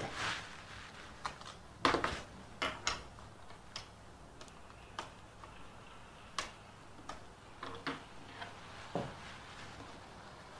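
Irregular clicks and taps of laptop keys being pressed, a dozen or so scattered over several seconds.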